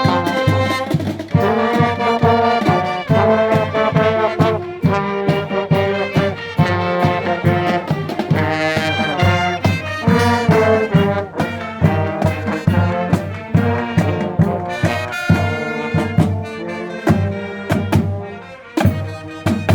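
Marching wind band playing a tune: brass carries the melody over a steady drum beat.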